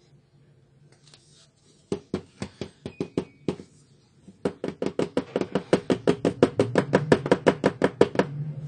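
Plastic toner cartridge knocked repeatedly against a wooden tabletop to settle freshly poured toner. First comes a handful of separate knocks, then a fast, even run of about nine knocks a second that stops just before the end.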